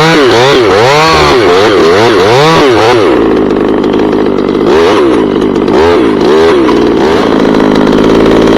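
Chainsaw running hard while making a face cut in a big ash leader. The engine revs up and down over and over, then holds a steady high speed in the cut.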